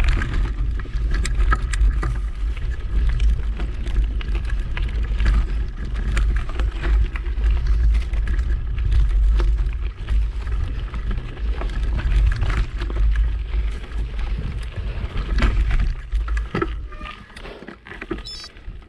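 Wind buffeting the microphone on a moving bicycle, a steady low rumble, with scattered clicks and rattles from the bike. It dies down over the last few seconds as the bike slows.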